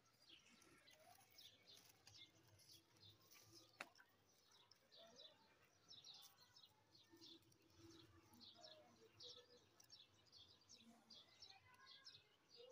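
Near silence, with faint, rapid bird chirps in the background and a single faint click about four seconds in.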